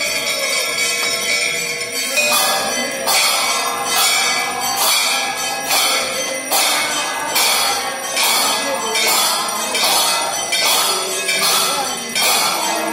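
Temple bells ringing for aarti: from about two seconds in, sharp metallic bell strikes repeat in an even beat a little more than once a second, over continuous devotional music.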